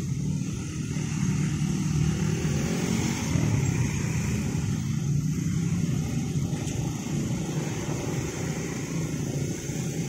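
Motorcycles and cars moving off across the railway tracks, many small engines running and revving together in a steady low drone.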